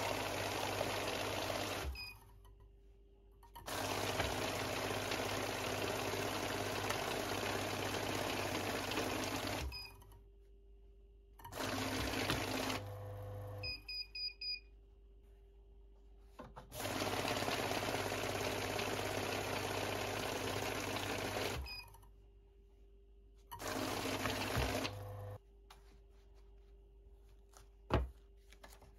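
Banknote counting machine running in repeated runs of several seconds, a steady whirring hum as it feeds a stack of $100 bills through, then stopping. Between runs come short high beeps, and near the end a short knock.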